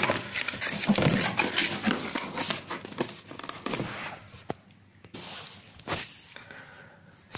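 Cardboard box being opened by hand: the end flaps scrape and crackle as they are pulled open, and the contents rustle as they are drawn out. The handling is busiest for the first four seconds or so, then quieter with a few clicks.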